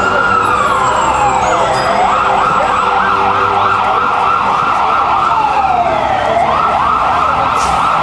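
Emergency vehicle siren switching between a slow wail that falls and rises and a fast warbling yelp, over a low rumble.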